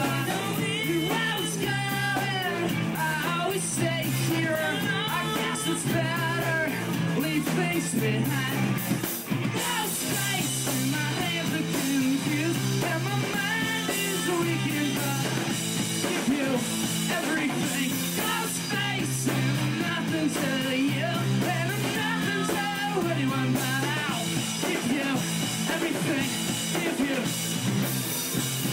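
Live rock band playing a song: distorted electric guitar, bass guitar and a drum kit with cymbals, with a lead vocal sung over it.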